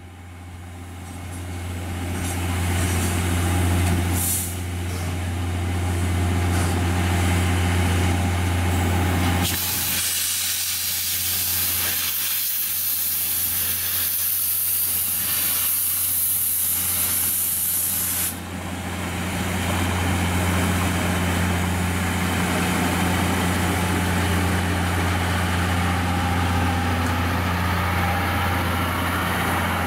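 Steam locomotive starting a train out of a station, with a steady hiss of steam over a steady low hum. About ten seconds in, a much louder, higher hiss of steam blowing out starts and lasts some eight seconds, then cuts off. In the later part the passenger coaches roll past.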